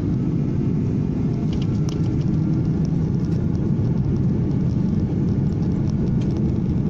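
Airliner cabin noise: a steady low rumble of engines and airflow, heard from inside the passenger cabin, with a few faint light rattles.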